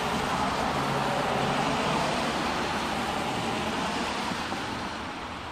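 A vehicle going by, a steady rushing noise with a low hum that swells over the first couple of seconds and then slowly fades.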